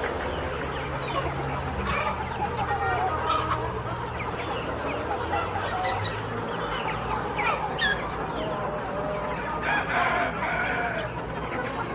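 A flock of kampung chickens clucking, with a rooster crowing among them; the calls are thickest about ten seconds in.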